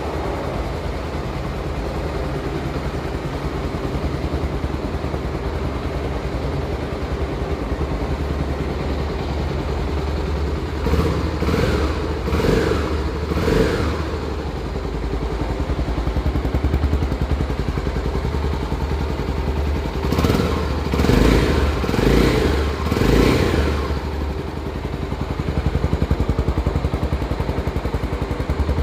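A Honda XR250 Tornado's single-cylinder four-stroke engine idling, blipped in a quick burst of three short revs about a third of the way in and about four more two-thirds of the way in.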